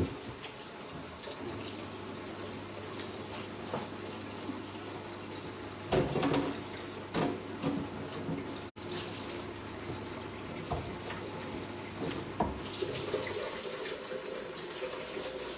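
Kitchen tap running into a sink as things are washed, with a few knocks and clinks of crockery against the sink.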